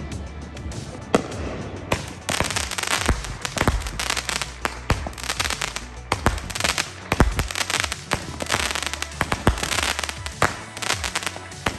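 Ground firework going off on the pavement: about two seconds in it starts a continuous hissing spray of sparks thick with crackling and sharp pops, with a few deeper thumps among them.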